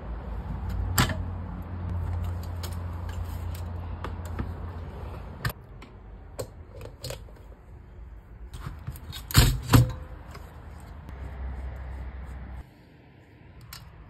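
Metal typewriter parts clicking and clunking as they are handled and taken apart, with scattered sharp clicks and a louder pair of knocks about nine and a half seconds in. A low hum runs under the first five seconds.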